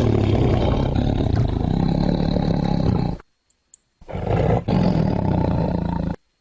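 Tiger roaring: two long, rough growling calls, the first ending about three seconds in and the second following after a short pause. Part of it has a rumbling, purr-like quality.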